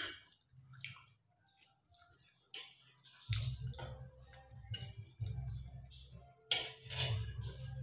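Cutlery clicking and tapping on plates while spaghetti is eaten, a scatter of short, sharp ticks. About three seconds in, a low, muffled bass of neighbours' videoke (karaoke) music comes in underneath.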